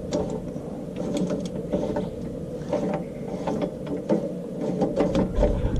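Irregular metallic clicks and clacks of hand tools at work on car suspension parts, over a steady low hum.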